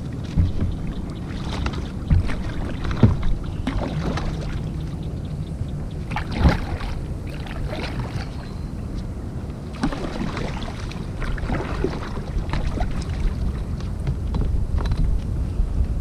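Small boat or kayak moving on the water, with water sloshing and scattered knocks and splashes. A steady low wind rumble sits on the microphone.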